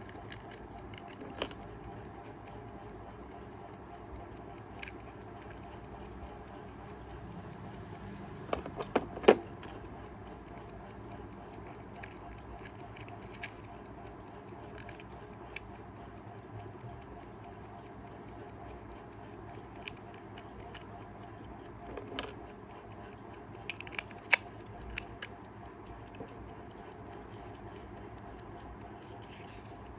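Kaiser 4 Rubis travel alarm clock's mechanical movement ticking, with a few sharper clicks and knocks from handling; the loudest comes about nine seconds in, with another group a little past twenty seconds.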